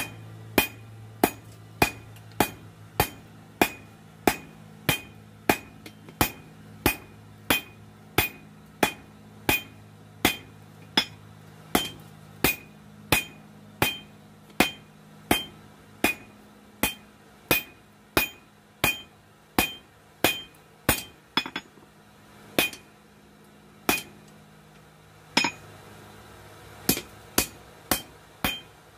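Hand hammer striking hot spring steel on an anvil while forging a knife blade, steady ringing blows about one and a half a second. The blows loosen near the end into a few spaced strikes.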